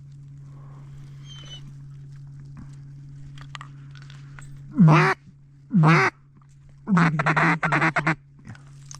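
Mallard duck call blown close by: two loud drawn-out quacks about a second apart, then a quick run of short quacks lasting about a second, calling to ducks flying over the decoys. A steady low hum runs beneath.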